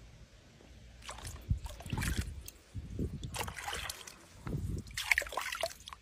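Water splashing and sloshing in a pool, stirred by a jaguar moving in it, in a run of irregular splashes that starts about a second in.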